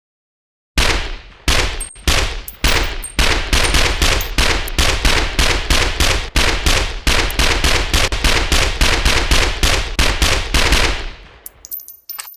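Heckler & Koch MP5 submachine gun firing on full auto: a few separate shots about a second in, then a long, evenly spaced run of rapid fire that stops near the end, trailing off with a few light clicks.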